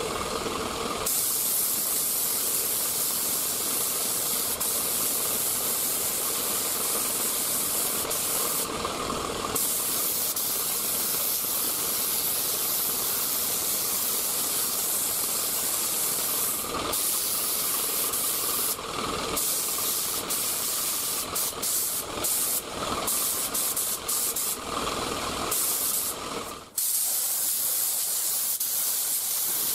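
3M Performance HVLP spray gun hissing steadily as it sprays single-stage urethane paint. The hiss changes briefly several times between passes and breaks off once near the end.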